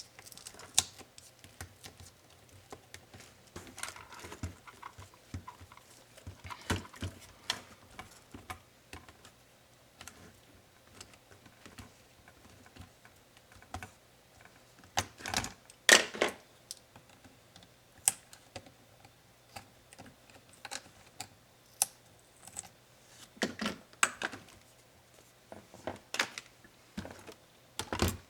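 Irregular small clicks, taps and knocks of plastic laptop parts and small tools being handled during disassembly, with a few louder knocks midway and near the end.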